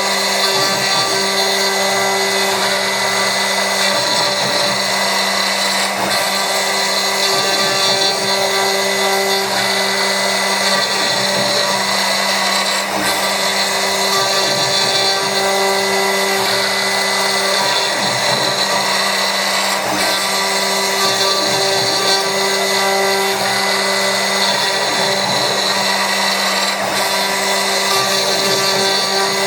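CNC milling machine running with a 3 mm-radius ball-nose end mill: a steady motor whine under a constant noise, with a second, slightly higher hum that starts and stops every few seconds.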